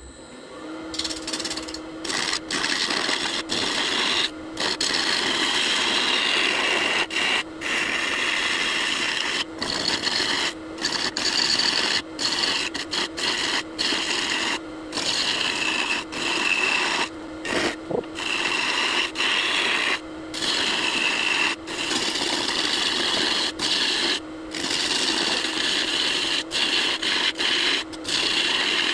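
Wood lathe running while a turning tool cuts into a lopsided blank of glued walnut pieces and blue epoxy: a steady hum under the noise of the cut. The sound cuts out briefly again and again.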